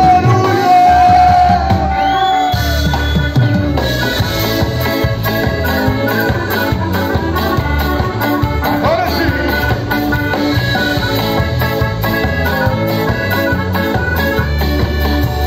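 Live band playing amplified dance music: accordion over electric guitars, bass and a steady drum beat. It opens with a long held note that falls away at its end.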